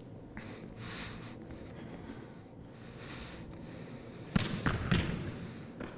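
Volleyball wall-hitting drill: a sharp slap of the ball being struck about four and a half seconds in, a second smack half a second later as it bounces back, and a lighter knock near the end. Before that, only faint room tone.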